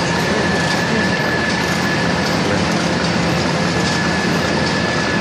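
Labelman PW-260R label printing press running, a steady mechanical din of turning rollers and drives with a constant high-pitched whine over it.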